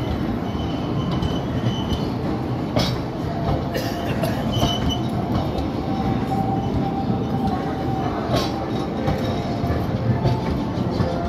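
Indian Railways passenger coaches rolling past as the train pulls out, a steady rumble of wheels on rail broken by a few sharp clacks.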